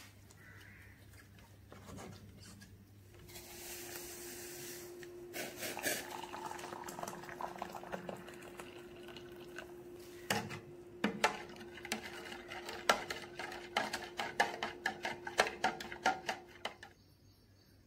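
Boiling water poured in a stream into a plastic measuring jug of jelly powder, starting about three seconds in. From about ten seconds in, a spoon stirs the jelly, clicking and scraping against the jug's sides several times a second, and it stops near the end.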